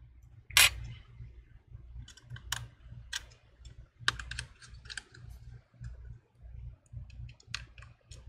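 Scattered light clicks and taps of small metal and plastic parts as an opened iPhone 11 is reassembled by hand, with a precision screwdriver working on the internal bracket screws near the end. The sharpest click comes about half a second in.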